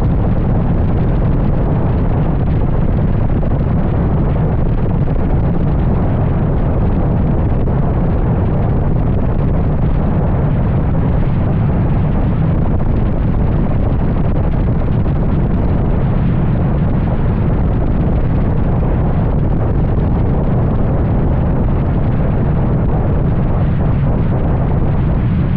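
2003 Mustang SVT Cobra's supercharged V8 running through an SLP Loudmouth exhaust at a steady cruise. The deep exhaust drone is mixed with wind buffeting on the microphone, with no revving or shifts.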